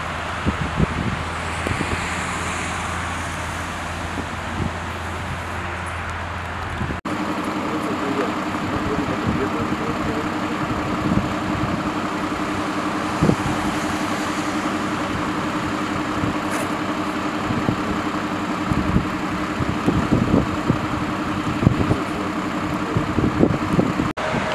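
Idling engines of stationary emergency vehicles, a steady hum over a haze of rain noise with scattered small taps. The hum changes to a higher steady tone about seven seconds in.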